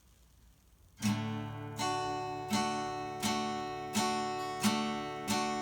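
Acoustic guitar strumming a steady chord rhythm, about one strum every three-quarters of a second, starting about a second in after near silence.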